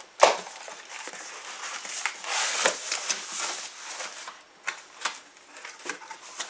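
Packaging rustling and crinkling as a freshly cut-open box is unpacked by hand, with a sharp click just after the start.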